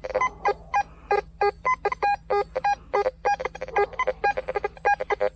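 Teknetics T2 metal detector sounding short beeps at a few different pitches, several a second, as its coil is swept back and forth over a patch with several buried metal targets.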